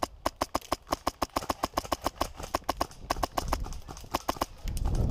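Airsoft rifle firing a rapid string of sharp shots, about seven a second with a few short breaks. Near the end the shots stop and a low rustling noise follows.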